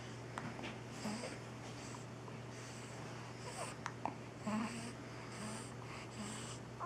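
A newborn baby hiccuping: several short, soft hics spaced irregularly, with quiet breathing between them.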